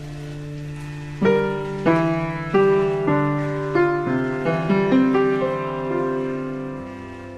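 Background piano music: a held chord, then slow single notes struck one after another from about a second in, each fading away.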